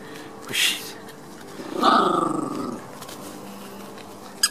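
Dog growling once for about a second, a rough, rumbling play growl over the squeaky ball held in the owner's hand. About half a second before it comes a short high-pitched squeak from the ball.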